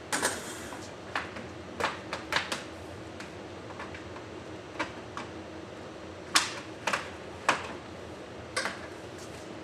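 Polymer EcoStud studs being worked into their snap-together track: an irregular string of sharp clacks and clicks as the stud knocks against and snaps into the track, the loudest about six and a half seconds in.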